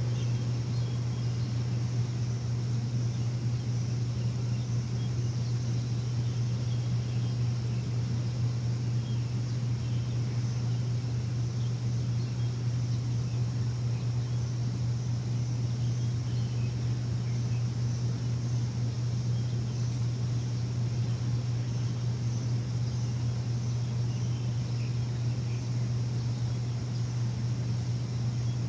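Steady low machine hum that does not change, with faint bird chirps above it.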